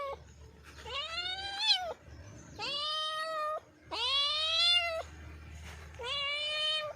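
Domestic cat meowing: four drawn-out meows about a second each, each rising then falling in pitch, with short pauses between them.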